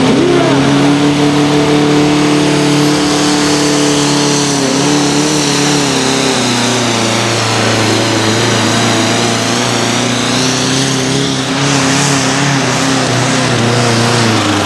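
A Fiat 640 tractor's diesel engine running flat out under full load as it drags a tractor-pulling sled: a loud, steady drone with a thin high whine above it, its note sagging slightly about five seconds in.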